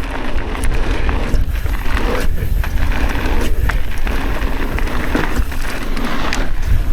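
Mountain bike rolling fast down a dirt jump trail: tyre noise and wind rumbling on the microphone, with scattered short clicks and rattles from the bike.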